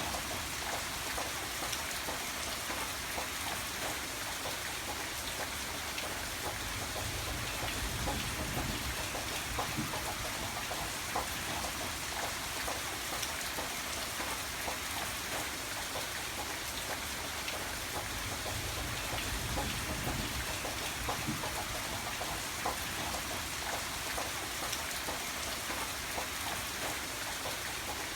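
Steady rain falling, a continuous hiss with many single drops ticking through it. A faint low rumble swells up twice, about a third and two-thirds of the way in.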